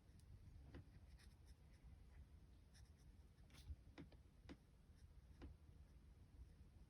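Very faint scratching and light taps of a Stampin' Up marker tip colouring on paper, a handful of small strokes scattered over a near-silent background.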